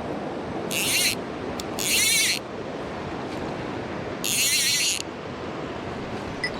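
Mountain stream water rushing steadily, with three short, loud high-pitched buzzes about a second in, two seconds in and just past four seconds.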